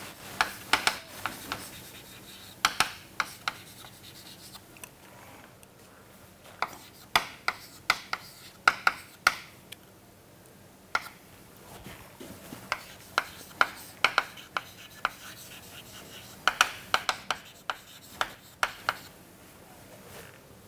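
Chalk writing on a chalkboard: bursts of quick taps and scratching strokes with short pauses between them.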